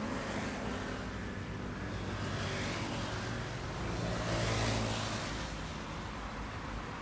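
Jet engines of an Airbus A321neo on final approach, heard as a steady distant rumble that swells a little about four to five seconds in.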